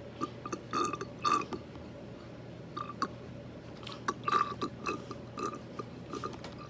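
Scattered short clicks and small squishing noises of a plastic toy feeding bottle being handled and pressed against a plastic doll during a feeding step.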